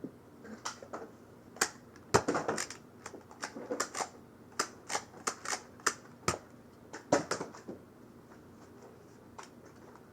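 Irregular bursts of sharp plastic clicks and clacks from Nerf blasters being handled and loaded with darts, dying away about eight seconds in.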